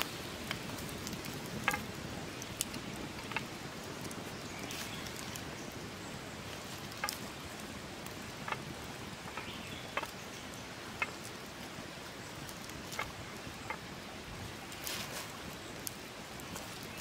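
Wood fire and its embers crackling: scattered sharp pops over a steady hiss.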